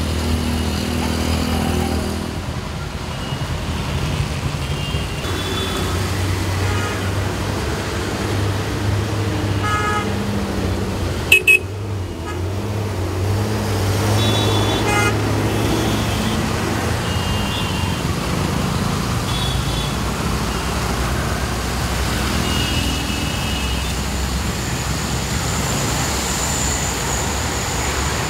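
Road traffic of auto rickshaws and motorcycles, engines running steadily, with short horn toots now and then; the loudest is a sharp honk about eleven seconds in.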